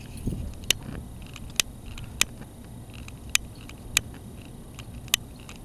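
Long-nosed butane utility lighter's igniter clicking as it is held to a bottle rocket's fuse: six sharp single clicks, roughly one a second, over a low steady rumble.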